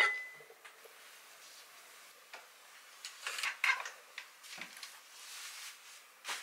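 Ceramic dishes being stacked, ending in a clink that rings briefly; then scattered light knocks and a soft rustle of fabric being pulled out and rummaged through on storage shelves.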